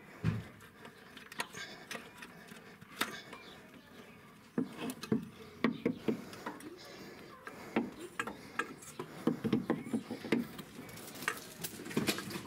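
Metal hand tools clinking and scraping against the engine's oil pump and oil pickup as their bolts are undone: a string of irregular light clicks and knocks, with a dull knock just after the start and busier clinking in the second half.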